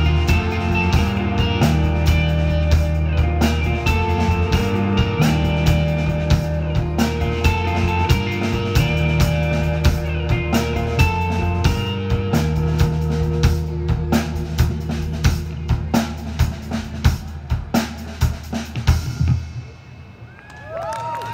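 A live rock band plays: drum kit, bass, electric guitars and keyboards, with a steady beat and held bass notes. The playing stops a couple of seconds before the end, and the audience begins to whistle and cheer.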